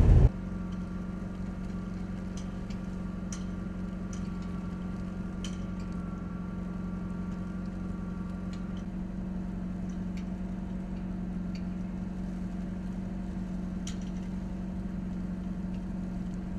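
Steady low hum of an idling vehicle engine, with a few faint ticks here and there.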